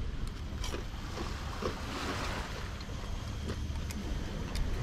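Wind buffeting the microphone with a steady low rumble, over the hiss of waves washing on a rocky shore that swells about halfway through. A few faint light clicks.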